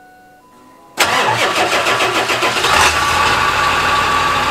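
Cold start of a 2000 Ford F-250 Super Duty's 7.3 L Powerstroke turbo-diesel V8, heard at the exhaust tip. The engine fires suddenly about a second in, pulses heavily for a couple of seconds, then settles into a steady idle.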